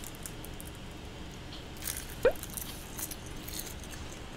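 Crisp seasoned laver sheets crunching faintly as they are bitten and chewed, in scattered light crackles. A short rising tone about two seconds in.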